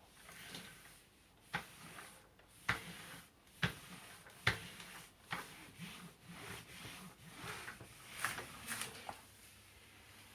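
Handling noise from a cordless stick vacuum's plastic parts and attachments: a run of sharp clicks and knocks, about one a second, with rubbing between them. The motor is not running.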